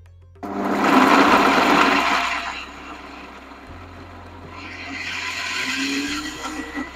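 Kitchen mixer grinder running, grinding a thick cashew, poppy-seed and onion masala into paste. It starts loud about half a second in, eases off after about two seconds, then runs up again before stopping near the end.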